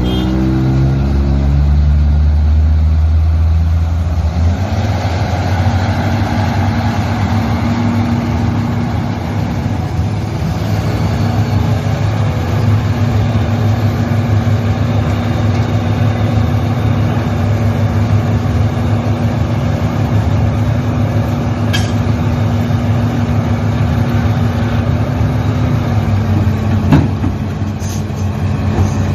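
Heavy diesel engine of a construction machine running steadily, with a sharp knock a couple of seconds before the end.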